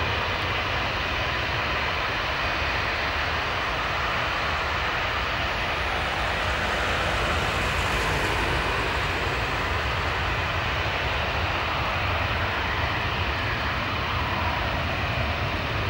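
Boeing 777-300ER's twin GE90-115B turbofan engines at approach power, a steady jet noise that grows a little brighter and louder around eight seconds in.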